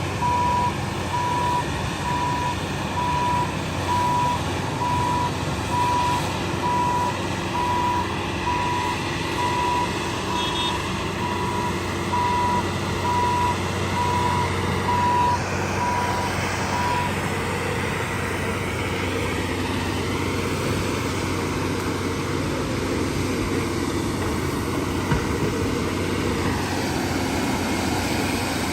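Heavy earthmoving machine's reversing alarm beeping steadily about once a second over a diesel engine running, while the machine backs up. The beeping stops after about seventeen seconds, and the engine drone carries on.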